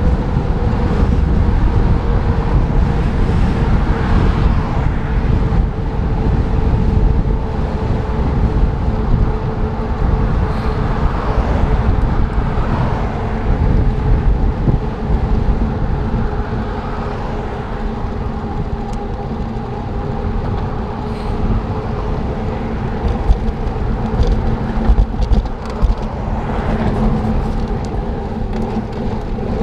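Wind rushing over the microphone and road noise from a bicycle being ridden along a street, a steady low rumble with a faint hum running under it.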